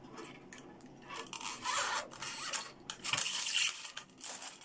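Handling noise from fingers working at an electric bass's metal bridge hardware: uneven rubbing and scraping, with a few small clicks.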